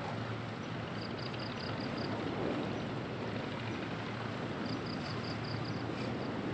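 Steady wash of sea waves against a rocky shore. Twice, a quick run of about six high chirps.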